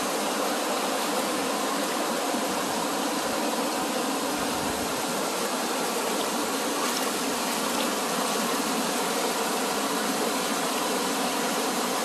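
Mountain stream water rushing over rocks, a steady, unbroken sound.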